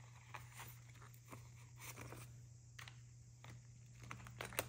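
Faint rustling and soft clicks of clear plastic zipper pouches in a ring binder being flipped through by hand, with a sharper click near the end.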